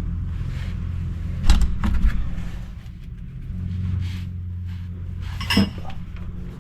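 A few sharp metal knocks, three close together about a second and a half in and one more near the end: a hammer tapping a 10 mm wrench on a rusted brake caliper bleeder screw to shock it loose. A steady low hum runs underneath.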